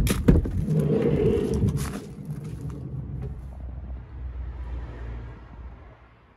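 Volkswagen T6 van's sliding side door unlatched with a sharp clunk and rolled open along its track, followed by a low rumble that fades out near the end.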